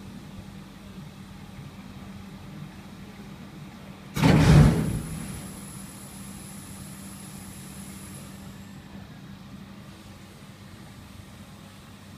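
DPF cleaning machine running with a steady hum while it cleans a Honda Civic 2.2 diesel particulate filter that is heavily loaded with ash. About four seconds in, a sudden loud blast of air and water is driven through the filter and dies away over a second or so. A thin high hiss lingers for a few seconds after it.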